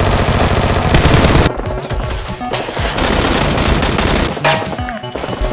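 Rapid automatic gunfire sound effect: a fast, even burst for about the first second and a half, then more ragged firing, over background music.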